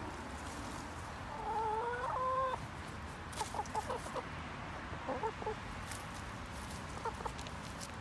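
Hens clucking as they forage: one drawn-out call about a second and a half in, followed by several bursts of short, quick clucks.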